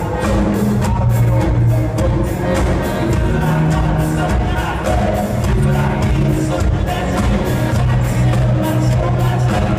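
Live rock band playing amplified music, heard from the audience: electric guitars over a steady bass line and a regular drum beat.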